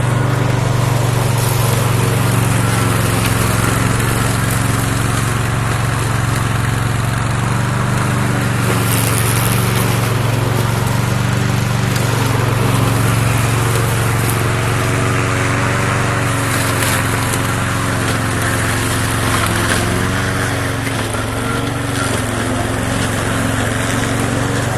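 Engine of a tracked remote-control lawn mower running steadily under way, a constant low hum whose pitch wavers slightly about twenty seconds in.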